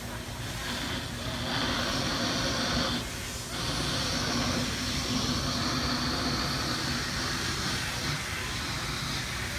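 Fire hoses spraying water onto a burning boat: a steady hiss that dips briefly about three seconds in, over a low steady hum.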